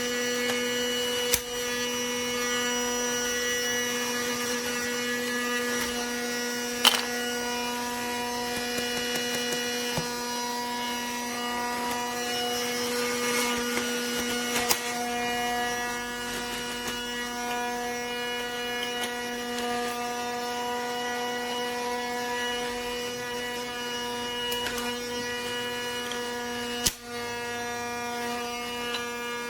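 Casdon Dyson toy cordless vacuum's small battery motor running with a steady, high-pitched hum, broken by a few sharp clicks.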